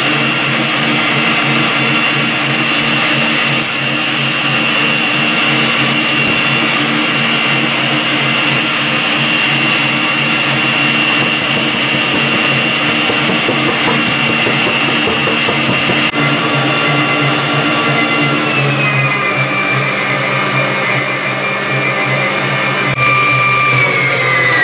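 Electric stand mixer running at speed, whisking sponge-cake batter, with a steady motor whine. About 18 seconds in the pitch steps down, and near the end it falls away as the mixer slows.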